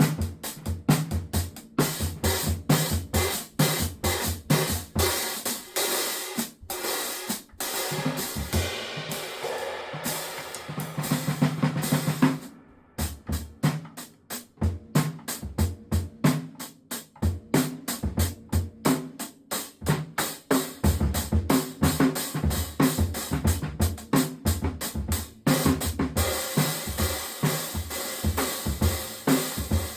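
Drum kit played with a 17-inch cymbal: a fast stream of drum and cymbal strokes with hi-hat and bass drum. The playing breaks off sharply for a moment about halfway through, then starts again.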